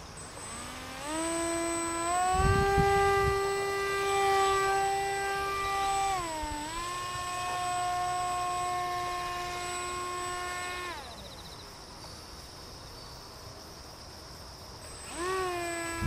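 Electric motor and propeller of a small foam delta-wing RC plane whining in flight. It is throttled up about a second in, dips briefly midway, then is cut back about two-thirds through so the plane glides, and is opened up again just before the end. A short gust of wind rumbles on the microphone early on.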